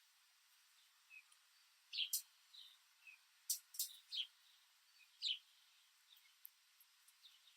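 Backyard songbirds giving faint, scattered short chirps and sharp chip notes, some as quick downward slurs, at irregular intervals.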